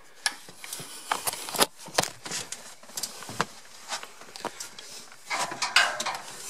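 Light knocks and clicks at irregular intervals, from movement and handling while going down into a barge's dark hold, with a rustling hiss building near the end.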